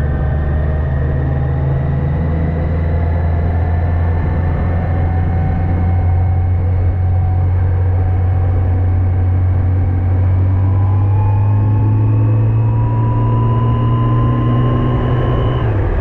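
Yamaha FJR1300AE's inline-four engine running under way, its pitch rising slowly as the bike gains speed, then dropping sharply near the end.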